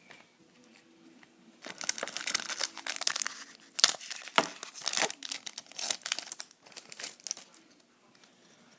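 Crinkling and crackling of a plastic-foil trading-card pack wrapper being handled, a busy run of crackles starting about two seconds in and stopping near the end.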